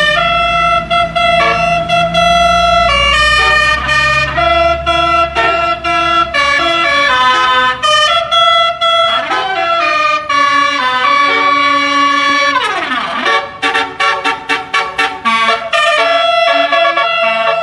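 Telolet basuri bus horn, a multi-trumpet musical air horn, playing a tune of held and stepping notes. It sweeps down in pitch like a siren around the middle, then plays a quick run of short staccato notes. A low rumble sits underneath for the first few seconds.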